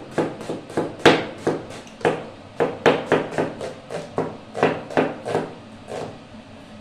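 Cleaver chopping through a red onion onto a plastic cutting board: a steady run of sharp knocks, about three or four a second, that stops shortly before the end.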